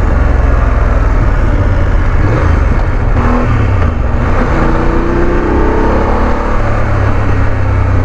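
BMW F 850 GS parallel-twin motorcycle engine pulling away under acceleration, its note climbing in the second half, with road and wind rush.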